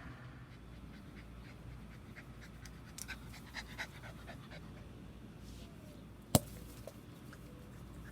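A small dog panting in quick, faint puffs, with one sharp click about six seconds in.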